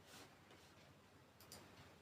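Near silence: one soft breath from a sleeping French bulldog at the start, then two or three faint, quick clicks about one and a half seconds in.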